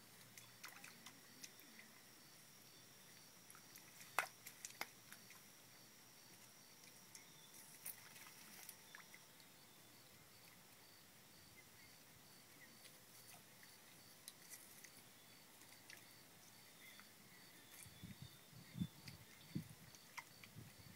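Quiet swamp ambience: a faint, evenly pulsing high chirp about three times a second, with scattered small clicks, the sharpest about four seconds in, and a few soft low thumps near the end.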